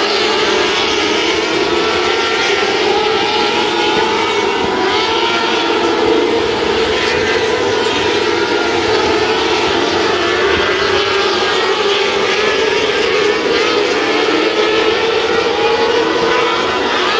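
A pack of 600cc micro sprint cars racing, their high-revving motorcycle engines running together in a steady, loud drone. Several engine pitches rise and fall as the drivers get on and off the throttle.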